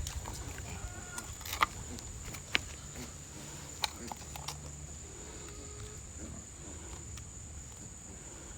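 Tied-down pig grunting low and faintly, with a few sharp clicks and knocks from the men handling it and cutting its tusks. A steady high-pitched whine runs underneath.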